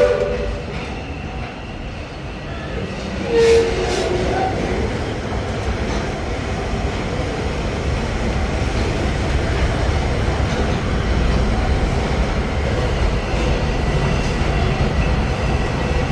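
Magic Kingdom steam railroad train running, heard from aboard: a steady rumble with wheel clatter that grows a little louder. The whistle cuts off right at the start, and there is a brief high tone about three and a half seconds in.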